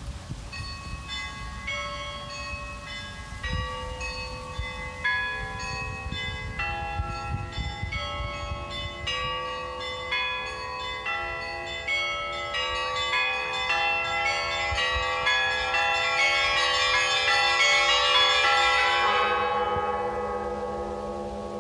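Russian church bells rung for noon: rapid strikes on several smaller bells over deeper ones, building denser and louder. Near the end the strikes stop and the bells ring on, fading.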